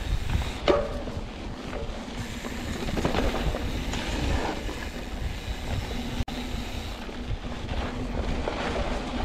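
YT Capra full-suspension mountain bike rolling fast down a dirt trail: tyres rumbling over the ground and the bike rattling and clattering, with wind buffeting the microphone. One sharp click just under a second in, and the sound drops out for an instant a little after six seconds.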